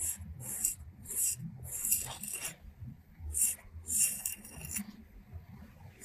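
Straight razor blade scraping short hair and stubble along the hairline behind the ear, in a series of about eight short, crisp strokes, with a pause near the end.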